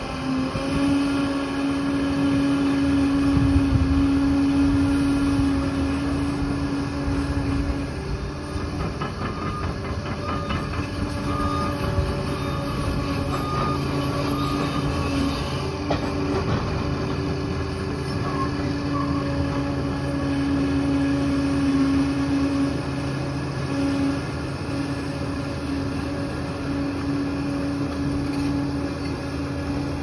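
Liebherr 746 crawler dozer working: its diesel engine runs at a steady pitch under load, with the clatter of its steel tracks.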